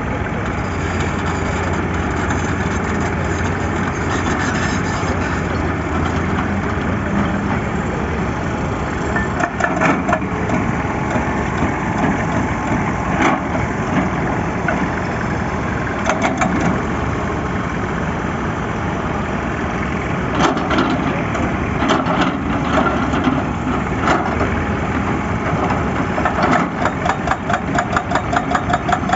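Excavator diesel engine running steadily at a work site, with several short bursts of rapid metallic clicking and clanking, the longest and fastest near the end.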